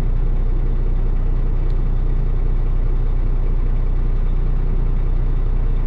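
Kenworth T880 dump truck's Cummins diesel engine idling steadily, heard inside the cab as an even low hum.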